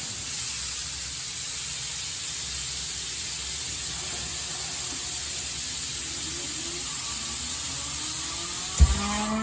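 Steady hiss of air from a Hitachi OSP-22VARN2 rotary screw air compressor. Faint rising tones come in near the end, and a single thump sounds just before the end.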